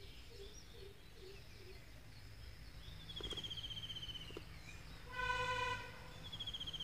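Nature-soundscape ambience: a high pulsed trilling call, sliding slightly down in pitch, repeats about every three seconds over a low steady hum. A short pitched call sounds about five seconds in.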